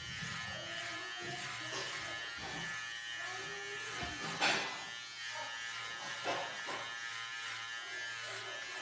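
Electric hair clipper running with a steady buzz while it cuts a child's hair. There is a sharp knock about four and a half seconds in and a smaller one a couple of seconds later.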